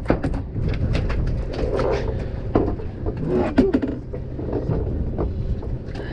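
Scattered knocks and clicks, like handling and gear on a boat deck, over a steady low rumble of boat engine and wind.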